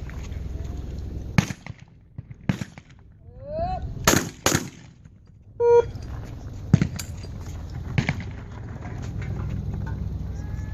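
Shotgun shots at a trap range: about seven reports, two fired in quick succession about four seconds in, with a rising shouted call just before that pair. A short electronic beep sounds just before six seconds, over a steady low hum.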